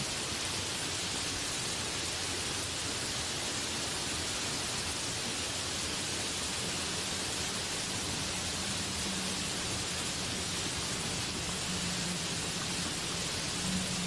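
Heavy rain pouring steadily onto banana plants and trees, an even, dense hiss of drops on leaves.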